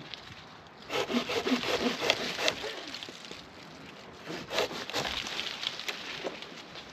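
Handsaw cutting through a walnut branch, two spells of rasping strokes with a pause between them.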